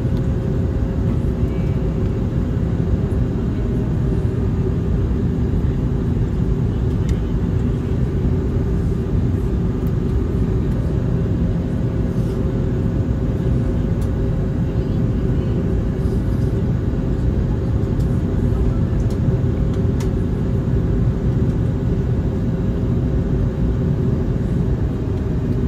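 Steady cabin noise of an Airbus A321neo on its descent, heard from a window seat by the wing: a dense, even rumble of airflow and its Pratt & Whitney PW1100G geared turbofan engines. A faint steady hum drops out a few seconds in and comes back about halfway through.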